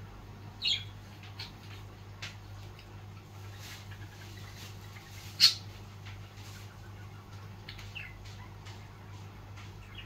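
Pet budgerigars making a few short, sharp chirps and clicks, the loudest about five and a half seconds in, over a steady low hum.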